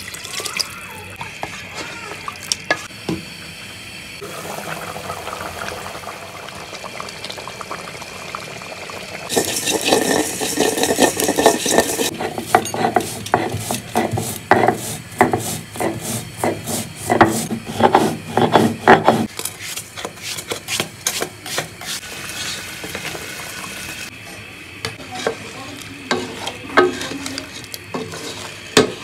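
Cooking sounds in three parts. First, water poured into a pot of sizzling duck curry. Then, from about a third of the way in, a stone roller grinding spice seeds on a flat grinding stone: a loud rasping run followed by quick, uneven scraping strokes for several seconds. After that, the curry simmers and is stirred in the pot, with a few light clicks near the end.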